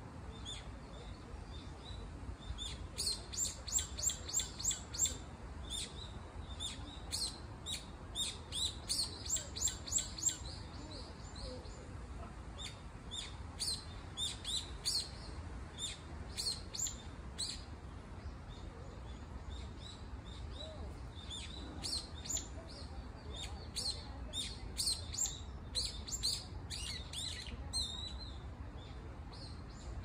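Brown-eared bulbul calling in repeated bouts of quick, sharp high notes, with pauses between the bouts.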